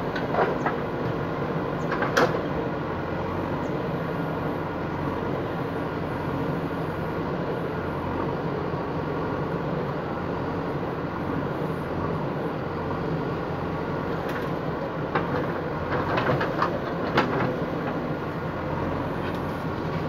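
JCB 3DX backhoe loader's diesel engine running steadily under hydraulic digging load, with a few sharp knocks from the digging arm and bucket working in rubble, one about two seconds in and several about three-quarters of the way through.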